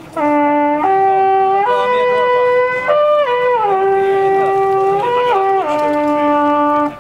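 Midwinter horn, a long wooden horn, blown in a single call of several held notes that climbs from a low note to a high one and falls back, ending on the low note it started on.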